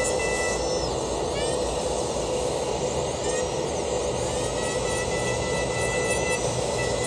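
Dental laboratory handpiece spinning a bur against a stone model with pink gum material, a steady high whine over a grinding hiss, with some tones sweeping up and down in pitch.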